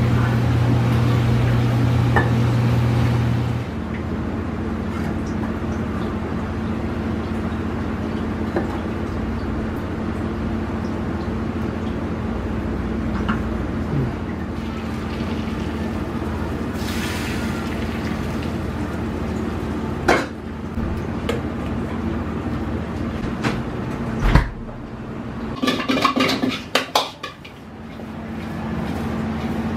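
Steady roar of a gas range, with light clicks of a metal spoon against the frying pan as an omelet is shaped. Near the end, a sharp knock, then a quick run of metal ladle clanks and scrapes in a wok.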